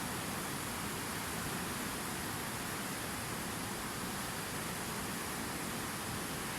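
Waterfall: water falling and rushing with a steady, even noise.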